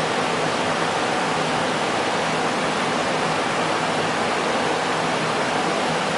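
Steady hiss of background room noise, with no distinct clicks or handling sounds standing out.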